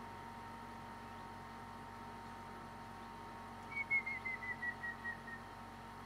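Grey-headed woodpecker singing: a run of about ten short whistled notes, about four seconds in, each a little lower than the last and slowing and fading slightly toward the end.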